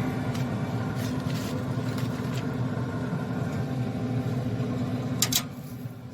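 Steady low hum of a pellet grill's fan running, with a sharp clank near the end, after which the hum is quieter.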